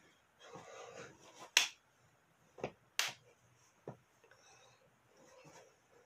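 Four sharp clicks from a child dancing, spread over about two seconds; the loudest come about one and a half and three seconds in. There is faint rustling of movement before them.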